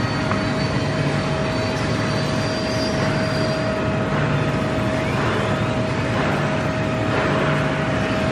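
Heavy-duty CNC router running: a steady machine whine over a constant wash of noise.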